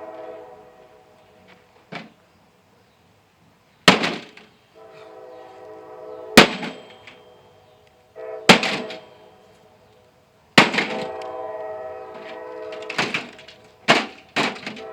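Heavy blows striking the sheet-metal case of a microwave oven, about seven in all, roughly two seconds apart, with three close together near the end. After most blows the metal case rings on like a bell and fades.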